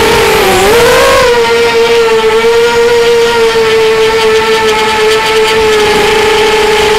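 Strider Flex 250 quadcopter's motors and propellers whining in flight, heard from its onboard camera. The pitch dips and then rises about half a second in as the motors slow and speed up, then holds steady, sagging slightly near the end.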